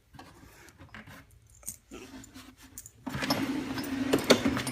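Small metal objects jangling and clinking as they are handled. It is faint at first, then a louder, denser clatter starts about three seconds in.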